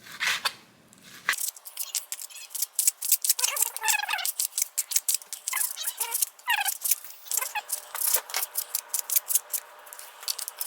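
A kitchen knife slicing raw chicken into bite-size pieces, with quick, irregular taps of the blade on a cutting board. Two short pitched calls sound in the background, around the middle.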